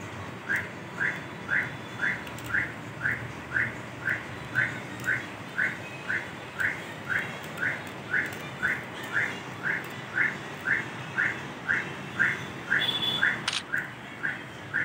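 A short, high chirp that rises in pitch, repeated very evenly about twice a second, with a single sharp click about thirteen seconds in.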